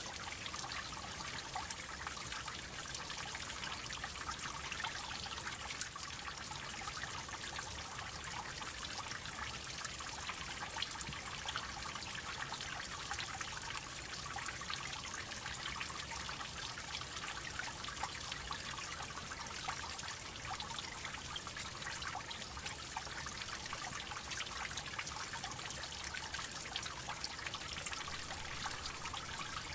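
Water droplets falling fast and densely, blending into a steady trickle, with many small drip ticks on top.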